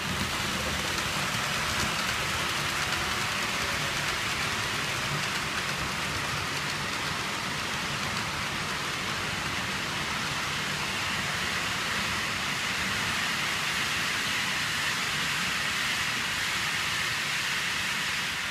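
Model train running on the layout's track, its wheels rolling on the rails as a steady hiss.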